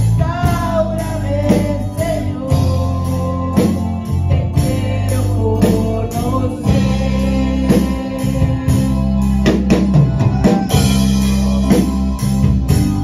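Live worship band playing: drum kit keeping a steady beat, keyboard, electric guitar and bass guitar, with a woman singing into a microphone.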